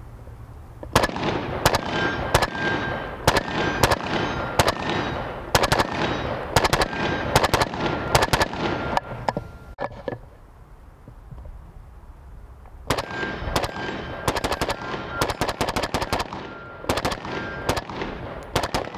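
.223 rifle with an 18-inch barrel firing quick strings of shots at steel targets, about two to three shots a second, with the steel plates ringing after hits. The firing stops for about three seconds midway, then picks up again.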